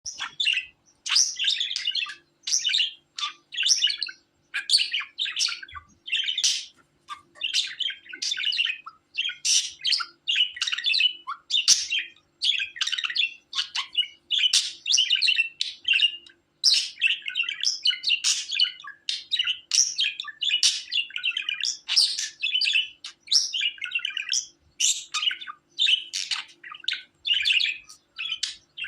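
Budgerigar chirping and warbling in quick, busy phrases, one after another with short breaks.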